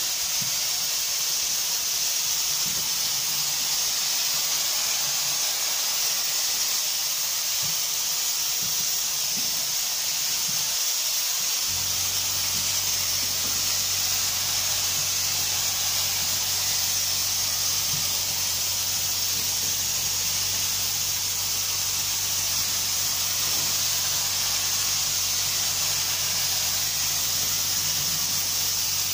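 Compressed-air spray gun atomising paint in a continuous high, even hiss as it is swept along a door. A low steady hum joins in about eleven seconds in and carries on under the hiss.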